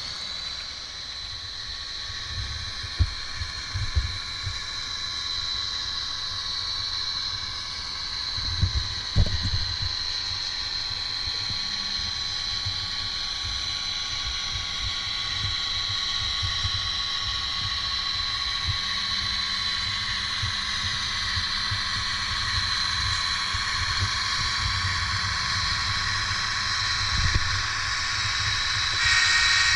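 Soundtraxx Econami sound decoder in a Bachmann N scale GP40 playing its diesel engine sound through the model's tiny speaker: a steady, thin drone with a high whine and little bass. A few low knocks are heard along the way, and a louder sound with several tones comes in near the end.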